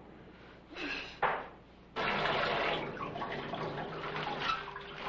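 Shower water running with a steady rush that starts suddenly about two seconds in. A brief sharp sound comes just before it, about a second in.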